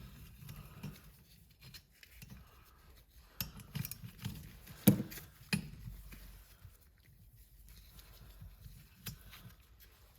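Scattered light clicks and knocks of tools and parts as a 7.3 Powerstroke turbocharger is being taken apart by hand; the sharpest click comes about five seconds in.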